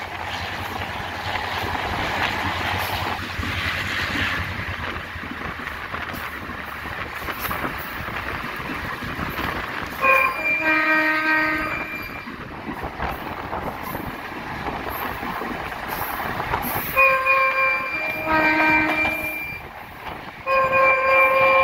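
EMD GL18B diesel locomotive running along the track, its multi-note air horn sounding in blasts about halfway through and again near the end, each time changing from one chord to another.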